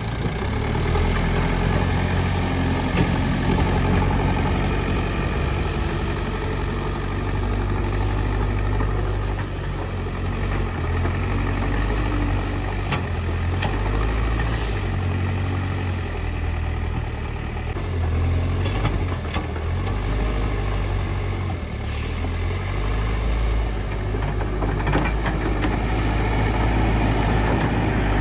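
Backhoe loader's diesel engine running steadily, its pitch shifting a little as it works, with a few faint knocks.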